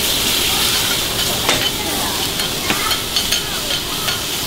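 Food sizzling on hot iron plates in a steady hiss, with a couple of sharp utensil clinks.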